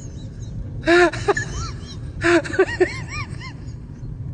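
A person's voice in a comedy sound-effect clip: two short bursts of wordless exclamations with rising-and-falling pitch, about a second in and again around two seconds in, over a steady low hum.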